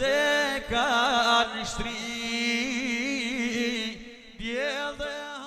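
Albanian folk song music: a long, ornamented melody line with wavering pitch. It pauses briefly a few times and stops abruptly at the end.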